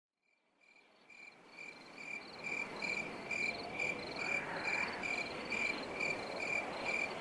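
Crickets chirping steadily, about two short high chirps a second, over a soft background hiss, fading in from silence about a second in.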